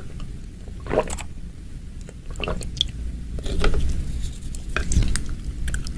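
A clear plastic bag crinkling and squishing as it is handled over a bowl, in several short crackly bursts, over a low steady rumble.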